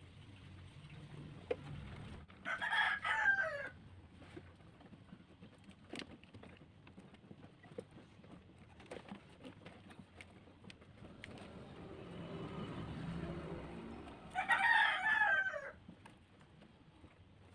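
A rooster crowing twice, once about two seconds in and again near the end, each crow a little over a second long and falling in pitch at its tail. Faint scattered clicks and taps come between the crows.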